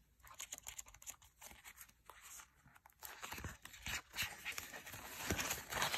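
Paper dollar bills being handled, giving short, scattered rustles and crinkles that grow busier and louder about halfway through.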